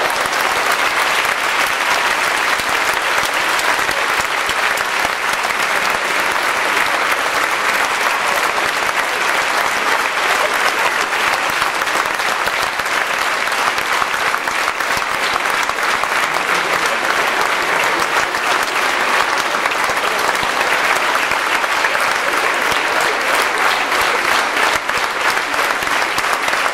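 A theatre audience applauding: dense, continuous clapping that stays even throughout.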